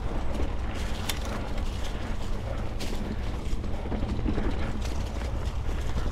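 Mountain bike ridden over a rough, overgrown forest singletrack: a steady low rumble with mechanical rattling and scattered clicks from the bike as it goes over bumps.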